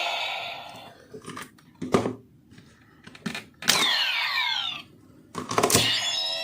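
CSM Lost Driver toy belt playing electronic finisher sound effects through its speaker, including a burst of falling whooshing glides, with sharp plastic clicks from the memory being handled and pressed. The previous sound fades out in the first second.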